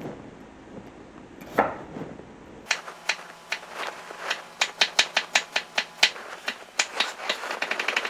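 Broad-bladed kitchen knife chopping a white onion on a wooden cutting board. One knock, then from under three seconds in a run of sharp knife strikes on the board that come faster and closer together near the end as the onion is diced.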